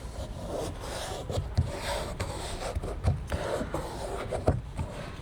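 Irregular rubbing and crinkling of adhesive vinyl film being handled and pressed onto an interior door panel, with a few soft knocks.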